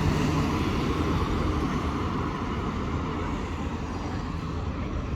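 Steady city traffic noise: a low rumble of road vehicles passing on a busy street.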